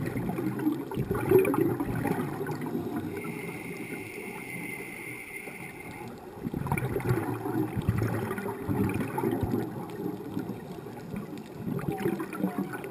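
Scuba regulator breathing underwater: three bursts of exhaled bubbles gurgling, with a steady hiss of inhalation between the first two.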